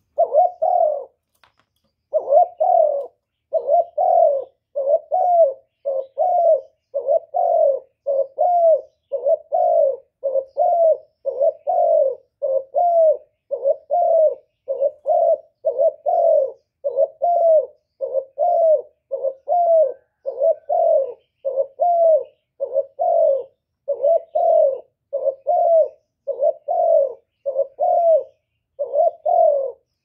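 Spotted dove cooing in a long, even series of short notes, about two a second, each note arching up and then down in pitch, with a brief pause about a second in.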